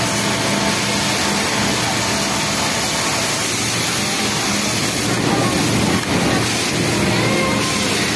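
Industrial flatlock sewing machine running at speed while stitching a T-shirt's bottom hem: a steady mechanical whir with a low, even motor hum underneath.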